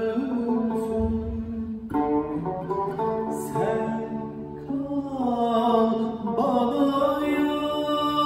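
A man singing a Turkish classical şarkı in makam Suzinak, holding long notes and sliding ornamentally between them, accompanied by a plucked Turkish tanbur.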